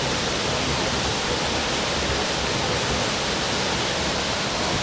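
Waterfall rushing, a steady, unbroken wash of falling water.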